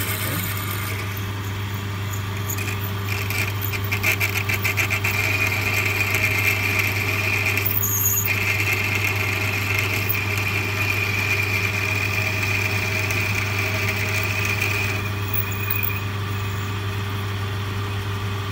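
Boxford Model A lathe running with a steady hum while a quarter-inch twist drill in the tailstock bores into hard stainless steel. A high squeal from the cut sets in about three seconds in, breaks off briefly near eight seconds, and stops about fifteen seconds in.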